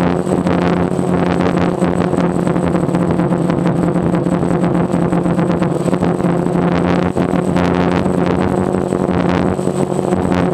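DJI Phantom quadcopter's electric motors and propellers buzzing steadily in flight, close to the GoPro carried on the drone, with a thin high whine above the hum.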